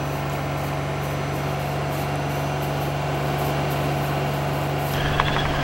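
Kukje rice combine harvester running steadily as it cuts standing rice, an even low engine hum. About five seconds in, a higher sound with a few clicks joins it.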